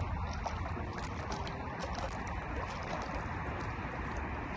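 Steady noise of wind and flowing river water, with faint scattered ticks.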